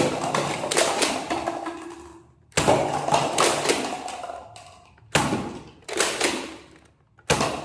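Gun firing sound effects: five sudden loud shots, each trailing off over a second or two, the fourth close behind the third.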